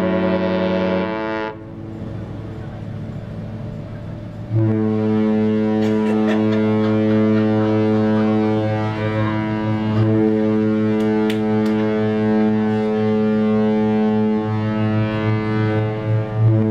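Two cruise ships' horns sounding in salute. A horn blast ends about a second in, and after a gap of about three seconds a deeper horn starts and sounds long and steady, still going at the end.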